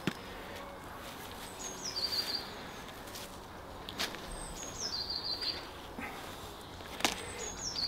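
A songbird singing the same short phrase about every three seconds: a brief high note dropping into a quick run of lower notes. Two sharp clicks come about four and seven seconds in.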